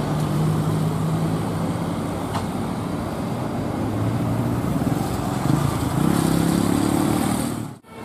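Road traffic: vehicle engines running as cars and a bus climb a grade, with one engine rising in pitch as it accelerates about halfway through. The sound drops out briefly just before the end.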